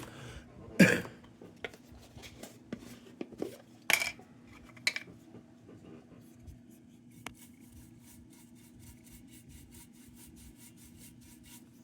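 Small metal objects and tools being handled on a workbench: a few scattered clinks and knocks, the loudest about a second in, with light rubbing between them. A faint steady hum runs underneath.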